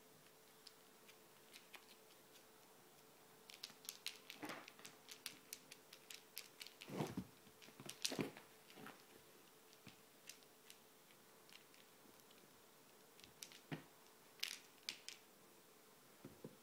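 A ginger kitten's claws and paws scratching, tapping and rustling on upholstery fabric and a fluffy rug as it pounces and bats at a toy. The sounds come in two spells of quick scratches and taps over a faint steady hum.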